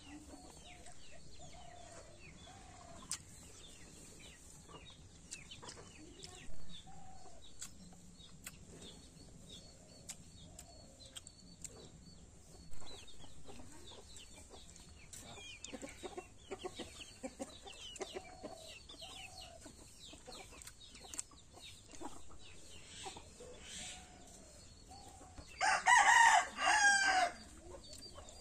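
Chickens clucking softly, with scattered small chirps, then a rooster crows loudly near the end, a call of about two seconds.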